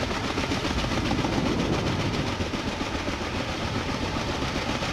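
Kaman K-MAX helicopter in flight: its intermeshing twin rotors and turbine engine make a steady, rapid rotor chop over a dense rushing noise.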